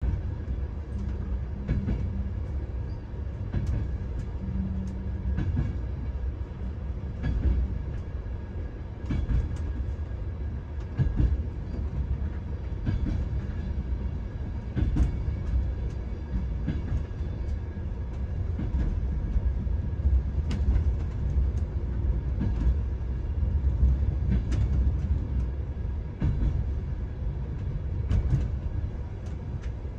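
Passenger train carriage running, heard from inside the compartment: a steady low rumble with frequent irregular clicks and knocks.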